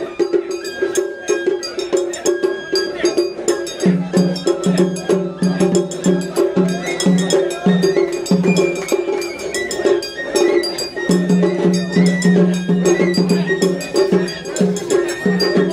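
Japanese festival music: rapid metallic strikes with a bright ringing, like a hand gong or cowbell, over a steady held tone and a lower tone that pulses in short beats.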